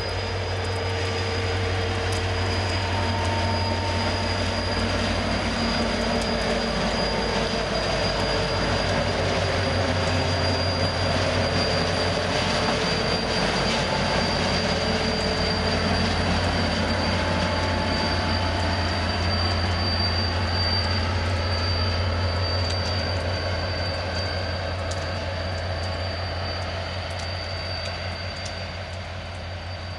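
Freight train of loaded hopper wagons rolling past behind an HŽ series 2044 diesel locomotive, the engine running under a steady rumble of wheels on rail. Wheel squeal comes and goes in thin tones. The sound eases off near the end.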